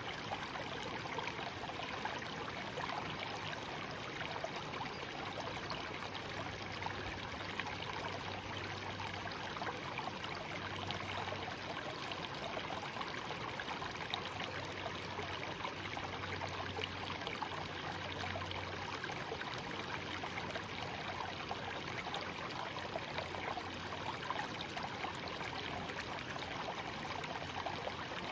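Shallow stream babbling steadily, an even, unbroken rush of running water.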